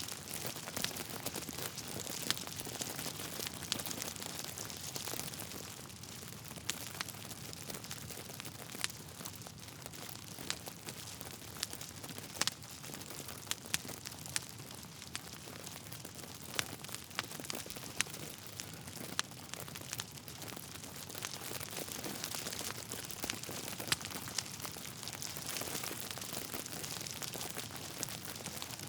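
Wood fire burning in a fireplace: steady hiss with frequent irregular crackles and sharp pops from the logs.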